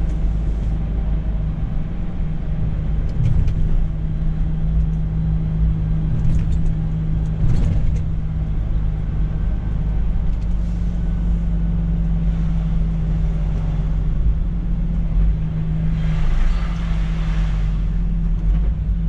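Semi-truck diesel engine running steadily while driving, heard from inside the cab as a low drone with road noise. A louder hiss rises for about two seconds near the end.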